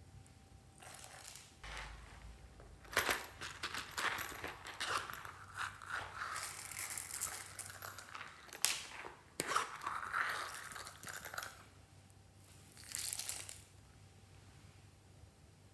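Small plastic containers handled over slime in a glass dish: sharp clicks and taps, with stretches of rustling and crackling as tiny sprinkles are shaken out into it. The sounds come in clusters from about three seconds in until near the end.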